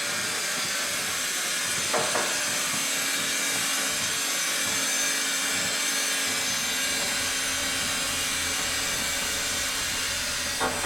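Construction-site ambience: a steady hiss of machinery with a low hum coming in about halfway, and two short double knocks, one about two seconds in and one near the end.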